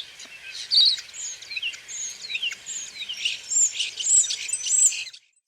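Common starling singing: a rapid jumble of metallic, trilling notes, chirps and whistled slides, with a thin high whistle held for about a second near the end. It cuts off abruptly about five seconds in.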